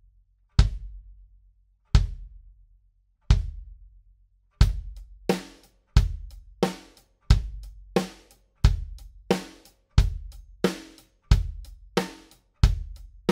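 Kick drum struck three times on its own, about a second and a half apart, each hit ringing out with a deep low end. Then a steady drum-kit beat of kick, snare and cymbals follows. All of it is picked up by a condenser mic on the kick drum's front (resonant) head.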